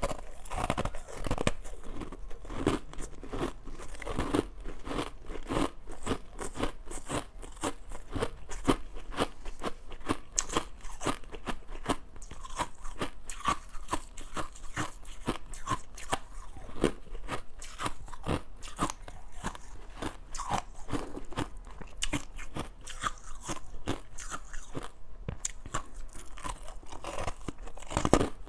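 Close-miked crunching of crushed ice being bitten and chewed, a dense run of sharp, irregular crackles several times a second.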